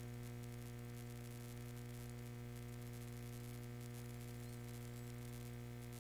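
Steady low electrical hum with a faint hiss, unchanging throughout: mains hum picked up by the recording setup.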